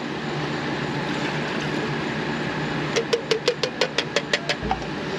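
Fuel poured from an outboard engine's fuel filter cup into a drinking glass, heard as a quick, even run of about a dozen short splashes over a second and a half, about three seconds in, over a steady background hum.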